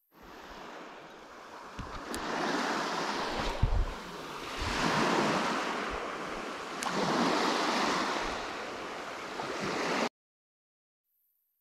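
Sea waves surging and washing ashore, swelling and fading every couple of seconds, with a few knocks and one low thump a few seconds in. The sound cuts off suddenly near the end.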